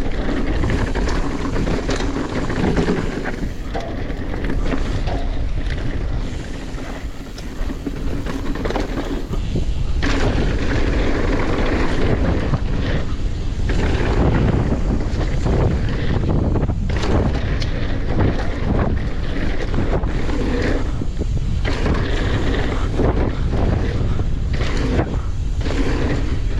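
Mountain bike riding down a dirt trail: wind buffeting the camera microphone over tyre noise, with frequent short knocks and rattles from the bike over bumps.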